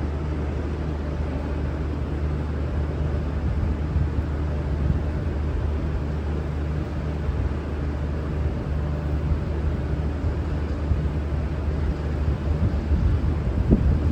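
V/Line VLocity diesel multiple-unit train's engines running at the platform, a steady low rumble that grows a little louder and rougher near the end.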